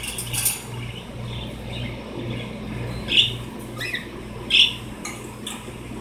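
Cockatiels giving short chirps and calls, the two loudest about three and four and a half seconds in, with fainter chirps between.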